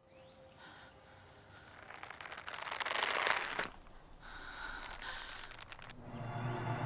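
Horror-film sound design: a faint ambient rustle swells to a noisy rush about three seconds in, then drops away. Near the end a low steady drone comes in.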